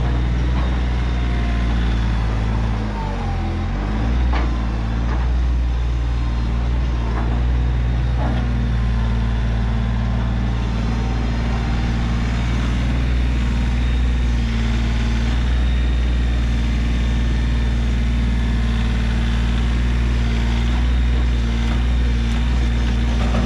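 Kioti CK3510 compact tractor's three-cylinder diesel engine running steadily during loader work, its pitch dipping briefly about three seconds in. A few faint knocks sound over it in the following seconds.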